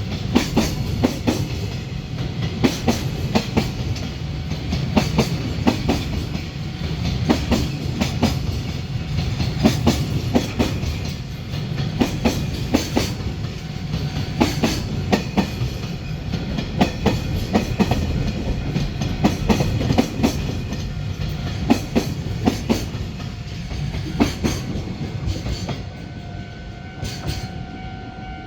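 Container wagons of a freight train rolling past, with a steady rumble and rapid, irregular clacking of wheels over rail joints. Near the end the clatter thins out and a steady tone comes in.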